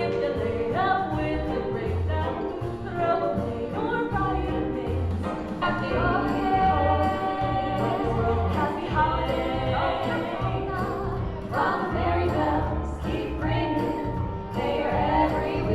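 Female vocal trio singing a Christmas song in harmony over an instrumental accompaniment with a bouncing bass line.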